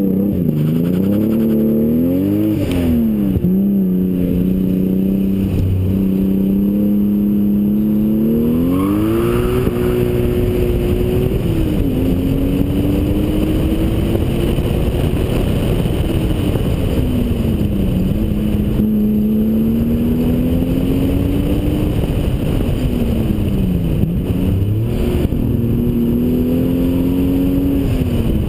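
Toyota Supra twin-turbo straight-six (2JZ-GTE) driving off and accelerating, its engine note climbing and falling back several times as it works through the gears and lifts, with wind and road noise from a camera mounted on the car's side.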